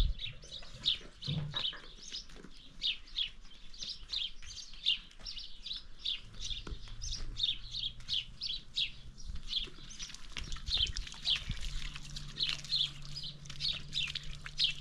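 Small birds chirping without a break, a quick run of short high chirps, several a second.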